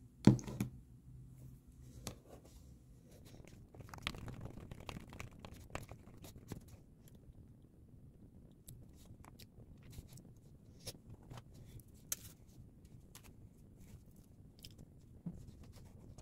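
A sharp knock about half a second in, then scattered light clicks, taps and rustling, busiest around four to six seconds in.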